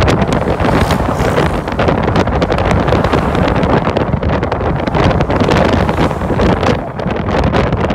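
Heavy wind buffeting on the microphone of a phone held at the window of a van moving at highway speed, over steady road and tyre noise.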